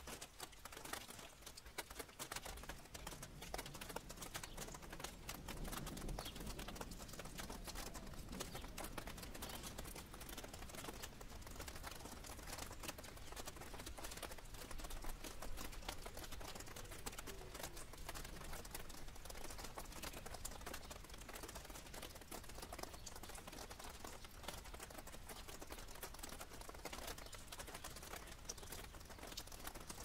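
Rainwater dripping and pattering on leaves after rain: a dense, irregular run of small ticks.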